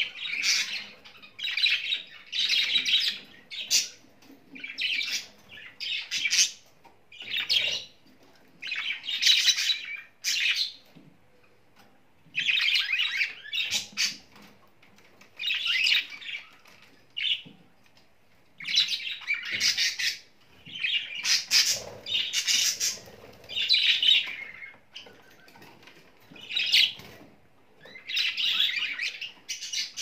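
Budgerigars chattering and chirping in quick bursts of a second or so, one after another with short pauses between.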